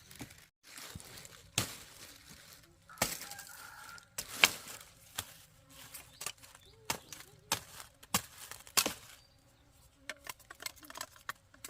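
A series of irregular sharp cracks and snaps, about ten over several seconds.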